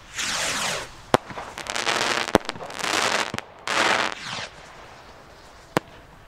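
Firework rockets launching one after another, each a rushing whoosh that falls in pitch, four in all. Sharp bangs from rockets bursting overhead come about one, two and a half, three and a half and six seconds in.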